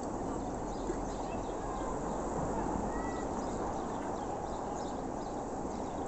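Steady low rushing outdoor noise by open water, with faint scattered high chirps and one short thin whistle-like note about three seconds in.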